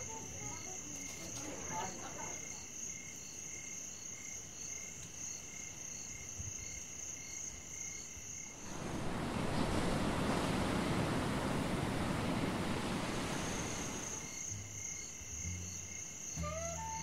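Night crickets chirping in a steady, pulsing high drone. About halfway through, a broad rush of noise swells up for about five seconds and then dies away.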